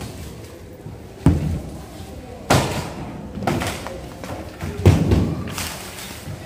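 Demolition of temporary partitioned cubicles: about five heavy thuds and bangs at uneven intervals as frames and panels are struck and knocked down, each dying away briefly.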